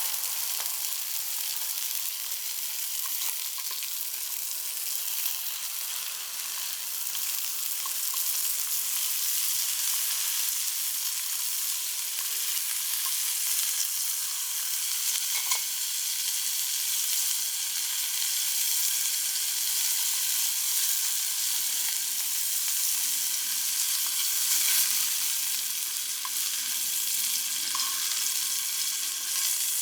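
Wild boar meat sizzling over a wood campfire: a steady hiss with scattered small pops.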